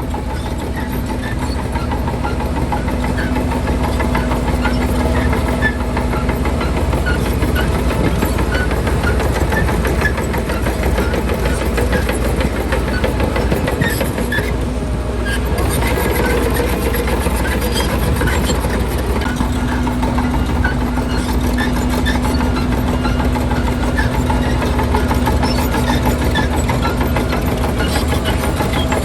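Diesel engine of a Shantui DH17C2 crawler bulldozer running steadily under work, with scattered light clanks and ticks. A steady hum rises over it for a few seconds near the start and again through most of the second half.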